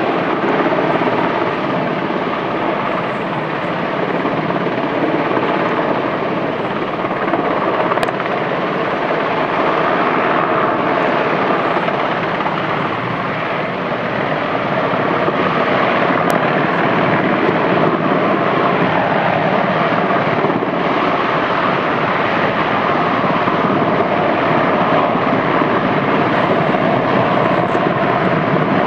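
Helicopter in a slow hover with a line hanging below it for a rescue pickup, its rotor and engine running steadily. The sound grows a little louder about halfway through.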